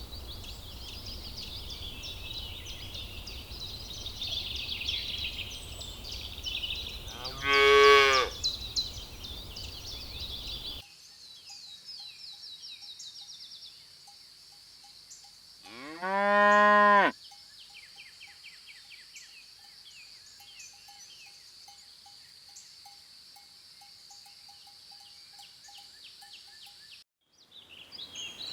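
Cattle mooing: two separate long moos, the first about a quarter of the way in and the second, lasting well over a second, a little past the middle. Behind the first are chirping birds and a low rumble; behind the second is a steady high buzz of insects.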